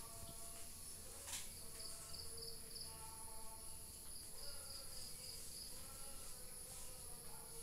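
Faint insect chirping: short runs of rapid high pulses that come and go, over a steady high-pitched whine.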